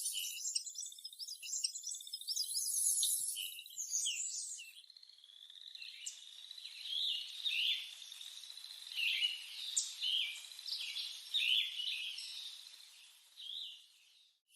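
Lettered aracari calling: a run of short, high chirping notes, dense at first, then separate sharp notes about two a second, over a steady high insect drone. Cuts off abruptly just before the end.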